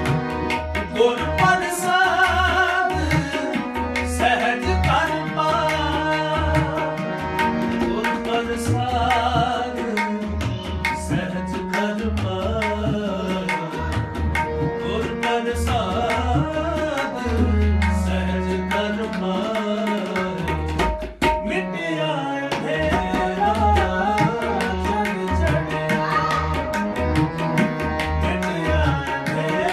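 Tabla playing a steady, busy rhythm, with crisp strokes on the small drum and deep, booming strokes on the bass drum, under a continuous harmonium melody in kirtan style.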